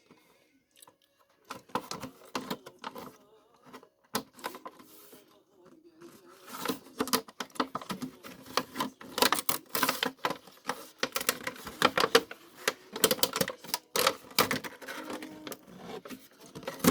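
Crinkling and clicking of a doll's plastic and cardboard packaging being handled and opened, a rapid irregular crackle that grows dense and loud about six seconds in.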